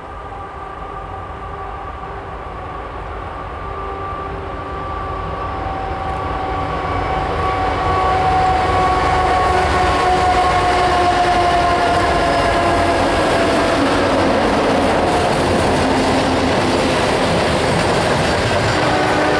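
CSX freight train passing: its diesel locomotives grow louder over the first eight seconds, with several steady droning tones that slowly drop in pitch and fade as the units go by. After that comes the rolling rumble and clatter of coal hopper cars going past.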